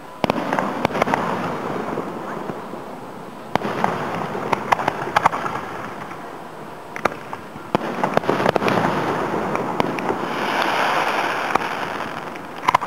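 Aerial fireworks shells bursting, heard from about a quarter mile away: sharp bangs every second or so, with a rumbling echo and crackle between them. A denser stretch of hiss comes shortly before the end.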